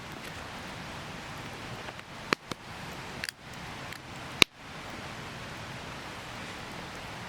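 Wood campfire burning with a steady crackling hiss, with a few sharp snaps between two and four and a half seconds in, the last the loudest.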